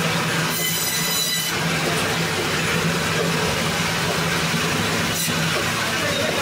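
Band saw running steadily while its blade cuts through rohu fish, with a brief high whine about half a second in as the fish is pushed into the blade.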